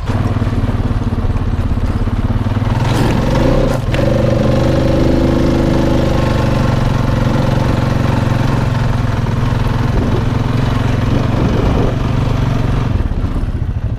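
ATV engine running steadily while the quad drives, heard close up, with a single knock about four seconds in. The low engine drone drops away about a second before the end.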